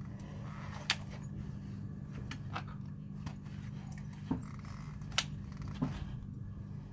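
Leg braces being handled and adjusted on the legs: a few short, sharp clicks and light knocks, the two loudest about a second in and about five seconds in, over a steady low hum.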